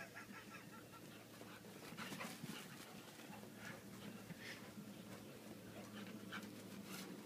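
Faint panting of two dogs running and playing, heard as short irregular breaths.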